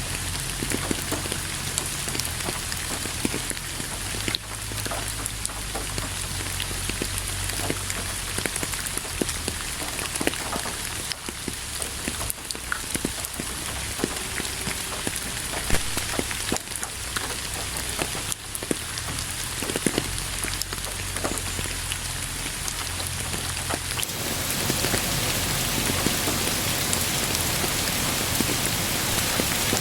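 Steady rain falling, with many individual drops striking close by. About 24 seconds in it changes to a denser, more even hiss.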